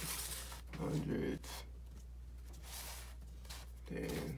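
Banded stacks of paper prop money being handled: picked up, slid and set down on a hard countertop, with two short louder rustles about a second in and near the end. A steady low hum runs underneath.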